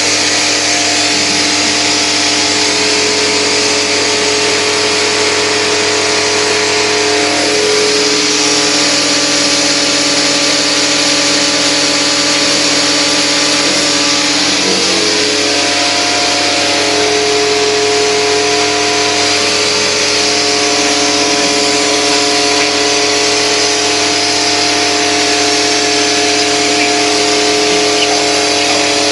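Coin-operated self-service car wash running: the high-pressure pump motor hums steadily under the loud hiss of the water spray. The hum shifts slightly in pitch twice.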